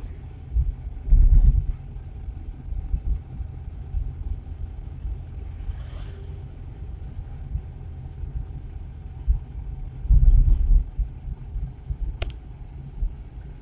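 Suzuki Carry 1.0 pickup's small four-cylinder engine running under way, heard from inside the cab with a steady low road rumble. There are two brief louder low rumbles, about a second in and about ten seconds in, and a sharp click near the end.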